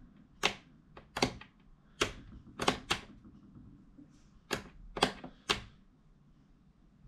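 Toggle switches on a FrSky Taranis QX7 radio transmitter flicked back and forth, about eight sharp clicks at uneven intervals, switching the drone's LED flashlight on and off.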